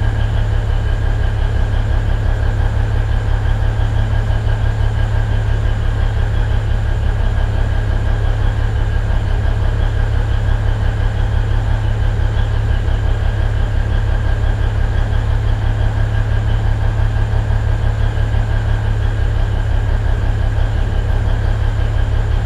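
DL-41 diesel locomotive's engine running steadily, a loud low hum with a fast even pulse.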